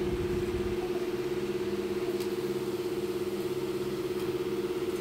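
Steady electric motor hum of a pedestal fan running, an even drone that does not change.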